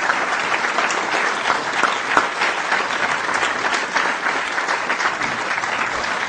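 Audience applauding steadily, a dense patter of many hands clapping at the end of a lecture.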